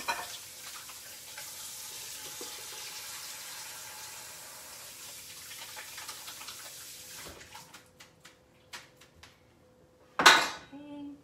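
Kitchen faucet running at the sink while hands are washed, shut off about seven seconds in. Then a few light knocks, and a brief loud clatter near the end.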